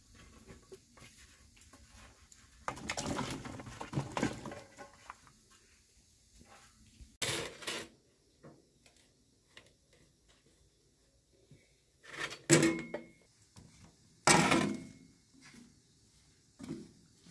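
Metal spoon scraping and knocking against a metal pan heaped with flour, in several separate bursts. The two loudest, near the end, leave a brief metallic ring.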